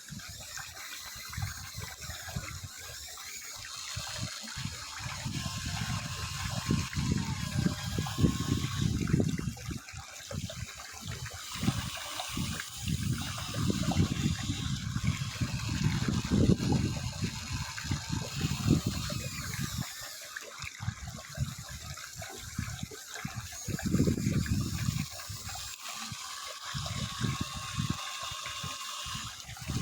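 Amewi radio-controlled model excavator working, its motors and drive running in swells of a few seconds with a faint whine and a gushing, pump-like rush.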